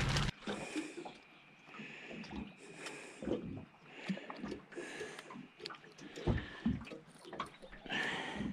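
Hands handling fishing tackle: soft rustling of plastic lure packets and bags, with scattered light clicks and knocks from plastic tackle boxes and rigging a lure on the line.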